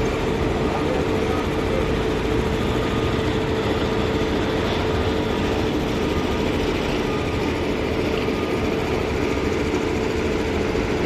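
An engine running steadily with a constant hum and a held tone, without changes in speed.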